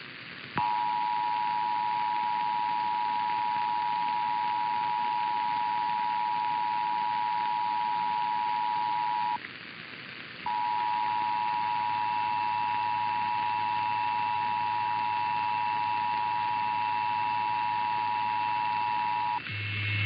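Emergency Alert System two-tone attention signal, the steady dual tone (853 and 960 Hz) that precedes an EAS test message, sounding twice for about nine seconds each with a break of about a second between.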